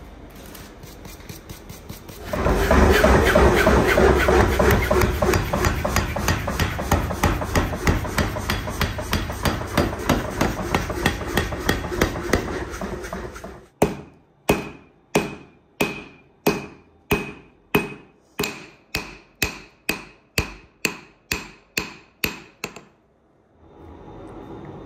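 A power hammer pounding a red-hot length of steel wire rope, a fast, heavy run of blows over a low rumble, as the cable strands are forged together for a knife. After a pause come about twenty slower, separate ringing blows, about two a second, which stop shortly before the end.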